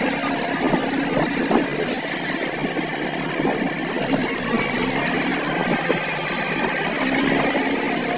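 Mahindra Yuvo Tech 275 DI tractor's diesel engine running steadily under heavy load, with the tractor's rear wheels dug deep into paddy-field mud.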